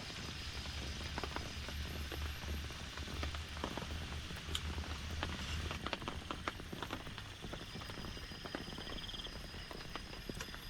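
Steady heavy rain, with many separate drops knocking sharply on a nearby surface. A low rumble runs under it until about halfway, and a high pulsing trill joins in the second half.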